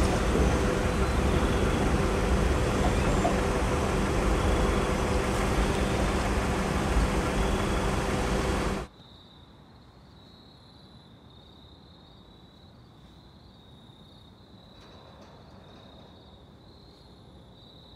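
A train rumbling past a grade crossing, wheels on rails, loud and steady, until it cuts off suddenly about nine seconds in. After that, a quiet night background with crickets chirping faintly and steadily.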